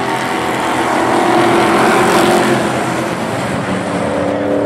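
A pack of Pro Truck race trucks running at speed on the oval, several engines at once, loudest about two seconds in as the field goes by.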